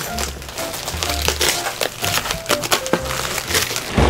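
Plastic packaging crinkling and paper being torn while gift boxes are unwrapped, with a sharper tear near the end, over background music.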